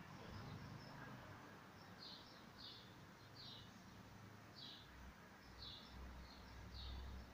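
Faint bird chirping: short high chirps repeated about once a second, over a low rumble that swells briefly about six seconds in.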